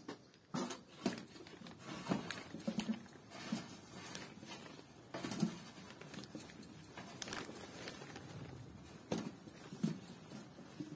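Scattered light taps and clicks, unevenly spaced about one or two a second, with a few duller knocks: a metal stove pipe and its clamp being handled on a small tent stove.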